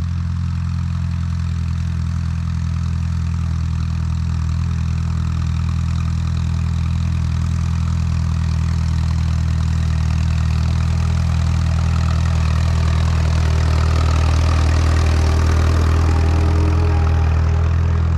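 Allis-Chalmers WD tractor's four-cylinder engine running steadily, growing slightly louder toward the end.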